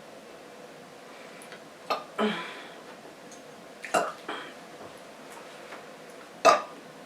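A woman burping: short burps about two seconds in, about four seconds in and near the end, the last one the loudest, each with a small click just before it.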